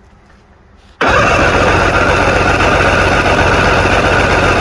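Inline-six outboard engine cranked over on its electric starter without firing, its plug leads grounded, to take a compression reading on one cylinder. The cranking starts suddenly about a second in and runs steadily with a fast, even churning rhythm.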